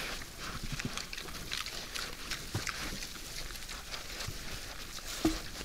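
Wild boars feeding at bait: steady crunching, chewing and rustling as they root and eat, with one short, louder grunt near the end.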